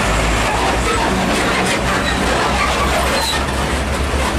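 Diesel tractor truck pulling a loaded flatbed semi-trailer driving past, its engine running steadily with a low rumble, and the trailer clattering over the rough concrete road.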